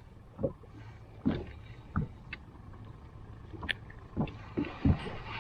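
Quiet sounds aboard a fishing boat: a low steady hum with scattered light knocks and clicks.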